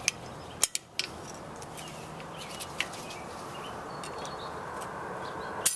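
Ring pliers clicking against the metal retainer ring of a Ford F250 front hub as the ring is pressed in: a few sharp clicks in the first second and a louder one near the end, over a steady background hiss with faint bird chirps.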